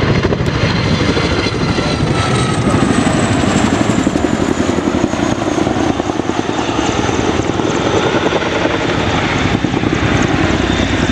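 Boeing CH-47 Chinook tandem-rotor helicopter flying low and close, its two rotors beating rapidly, with a high turbine whine from its twin turboshaft engines that slowly falls in pitch.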